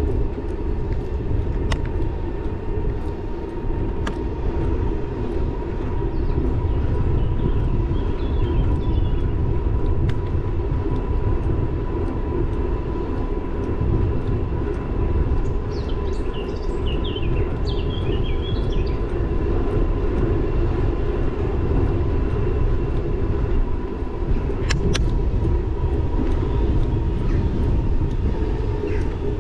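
Wind on the camera and bicycle tyres rolling over an asphalt bike path while riding an e-bike: a steady low rumble with a thin steady whine above it. A bird chirps briefly around the middle.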